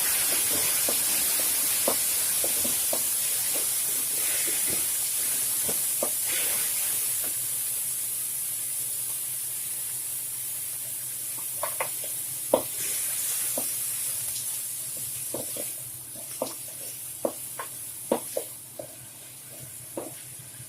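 Chopped tomatoes frying and sizzling in a pan as they are sautéed. The sizzle slowly fades, and from about halfway on a spatula knocks against the pan again and again as it stirs.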